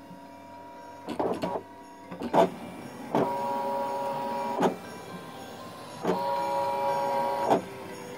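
Brother ScanNCut electronic cutting machine making a full-depth cut: its motors whine as the blade carriage and mat move, louder in two stretches of about a second and a half each, with sharp clicks as each move starts and stops.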